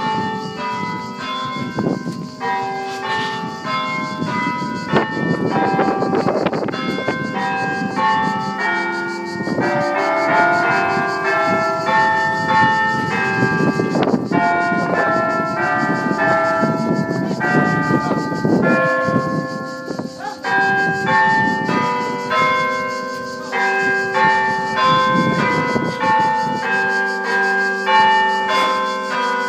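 Church bells ringing, struck many times in quick irregular succession, their tones overlapping and ringing on.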